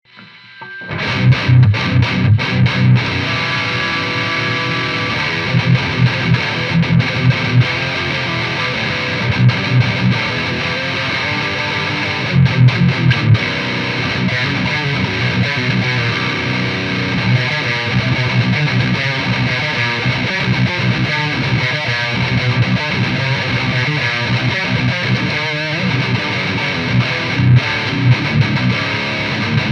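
Heavily distorted electric guitar played through an EVH 5150III LBX tube head into a Mesa Boogie 1x12 cabinet with a Celestion Vintage 30, heard through a close mic: a chugging metal riff that begins about a second in, with repeated heavy palm-muted low hits.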